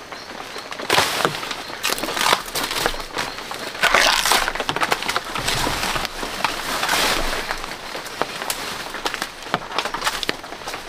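Dry leaves and grass stems rustling and crackling as someone works through dense undergrowth, with irregular sharp snaps of twigs or stalks breaking.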